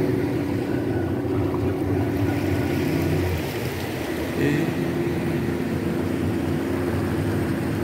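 A 75-horsepower outboard motor drives a speedboat at cruising speed with a steady drone over the hiss of water and wind. Its note sags briefly a little past the middle, then steadies again.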